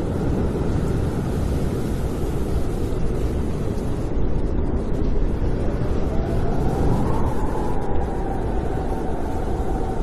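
Snowstorm wind blowing, a steady deep rush, with a faint whistle that rises and then falls in pitch in the second half.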